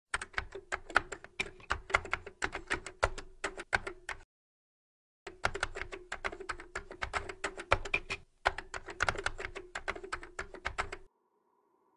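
Typing sound effect for a text reveal: rapid key clicks, about five a second, over a faint steady hum. The clicks pause for about a second near the middle and stop shortly before the end.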